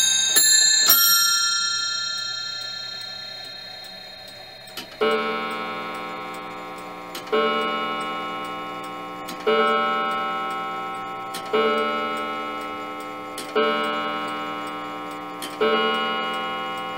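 Wizard automaton clock: the last quarter-chime notes on its nest of bells ring out in the first second and die away. Then the hour strike begins on its coiled wire gong about five seconds in: six deep strokes about two seconds apart, each left to ring, with the movement ticking underneath.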